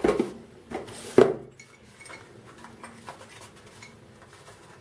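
A small cardboard box handled and opened by hand, with a few sharp knocks and clinks in the first second and a half, the loudest about a second in, then faint rustling and light ticking as the box is worked open.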